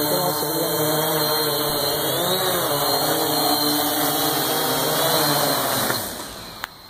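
Kopter Krazy K-850 Trooper multirotor drone's motors and propellers humming as it hovers low and comes in to land, the pitch wavering about two to three seconds in. The motors spool down and stop about six seconds in, followed by a single sharp click.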